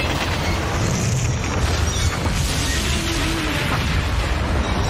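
Film sound effects of a fireball explosion in a subway tunnel after a train crash: a continuous deep rumble that stays steady in level, with no single sharp bang.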